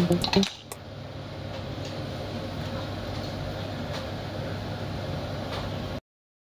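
Steady hum of a kitchen range-hood exhaust fan running, after background music cuts off about half a second in. The sound stops abruptly near the end.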